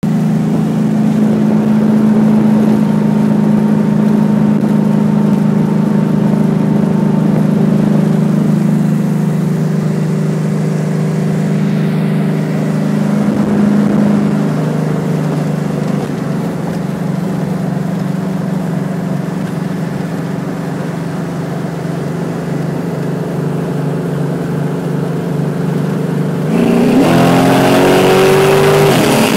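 A 1966 Chevelle SS pro street car's engine, heard from inside the cabin, running with a steady drone at highway cruise. About 26 seconds in it suddenly gets louder and climbs in pitch as the car is floored.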